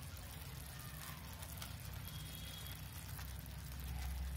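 Thick tomato-onion masala gravy simmering in a pan, with faint scattered bubbling pops and ticks over a steady low hum.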